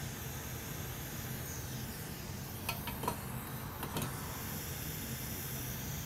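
Hot air rework station blowing with a steady hiss while the board is heated to loosen broken connector pins, with a few light clicks near the middle.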